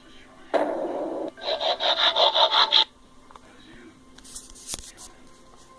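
A rasping scrape, then a quick run of about eight rasping strokes, roughly five a second, that stops abruptly; a few faint clicks follow.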